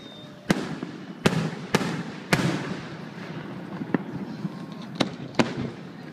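Aerial firework shells bursting overhead: about seven sharp booms at irregular intervals, each trailing off in an echo.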